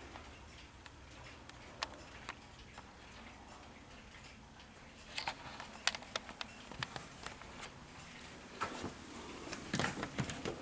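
Ridgeway chain-driven grandfather clock ticking softly, with more clicks and a few louder knocks in the second half.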